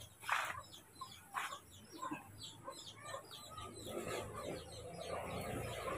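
Chickens clucking in short, separate calls. Through the second half a low rush of noise grows steadily louder.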